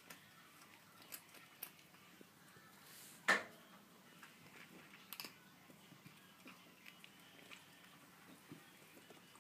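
Kitten crunching dry kibble: scattered soft crunches and clicks, with one sharp, much louder click about three seconds in.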